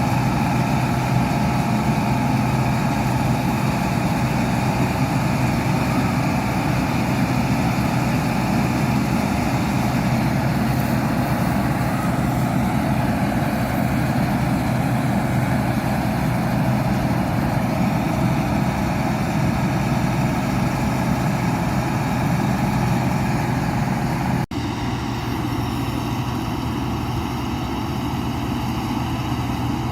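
New Holland 8070 combine harvester's engine running steadily. It breaks off for an instant about 24 seconds in, then carries on a little quieter.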